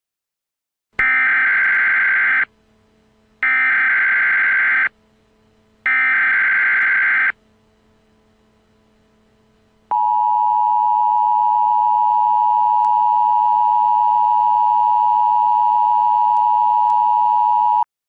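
Emergency Alert System alert tones: three SAME digital header bursts, each about a second and a half of harsh warbling data tone, then after a short pause the two-tone attention signal, a steady dual-tone blare held for about eight seconds. The tones mark the start of an emergency alert broadcast.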